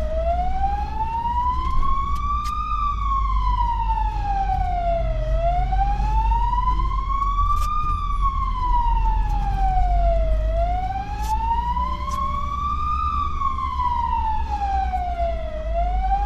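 Fire engine siren on a slow wail, rising and falling about every five seconds, heard from inside the cab over the low rumble of the truck's engine.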